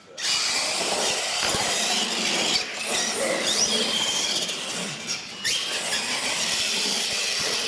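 Two radio-controlled monster trucks launching together off the start line and racing across a concrete floor: a sudden, steady rush of motor whine and tyre noise, with a couple of short rising whines.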